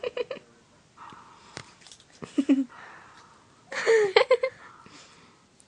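A few short vocal sounds without words, the loudest about four seconds in.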